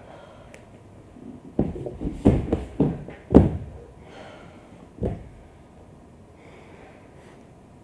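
Two barefoot dancers' bodies and feet thudding on a stage floor as they go down to it. Several thumps come in a run from about one and a half to three and a half seconds in, the last the loudest, and one more follows about five seconds in.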